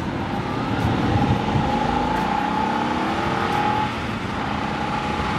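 BMW 335i wagon's N54 twin-turbo straight-six accelerating, heard from inside the cabin through its sleeper exhaust (stock 325i rear section on 335i front pipes), engine note rising, then dropping about four seconds in at an upshift, over steady road noise.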